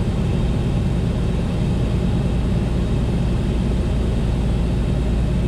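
Steady cabin noise of a Beechcraft A36 Bonanza in a power-off glide: the engine throttled back with the propeller pulled to low RPM, and the rush of air past the airframe, heard as an even low rumble.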